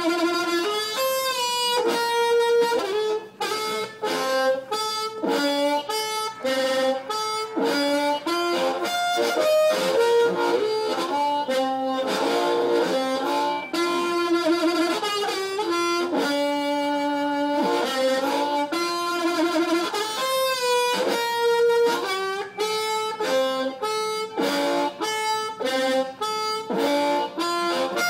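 Harmonica played solo: a quick melody of short notes, with a few longer held chords in the middle.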